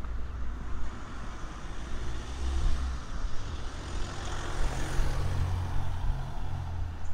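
A motor vehicle passes over a low rumble, its engine and tyre noise swelling to a peak about four to five seconds in, then fading.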